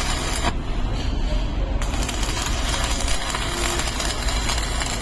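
Electric arc welding crackle, a dense steady hiss over the low hum of the welding machine; the arc breaks off about half a second in and strikes again shortly before two seconds.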